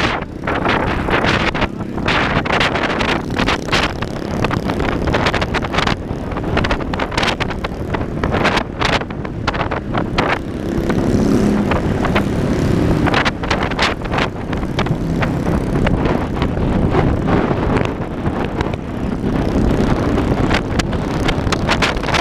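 Car driving at speed on a highway, with wind buffeting the microphone in irregular gusts over steady road and engine noise. A deeper drone swells briefly about halfway through.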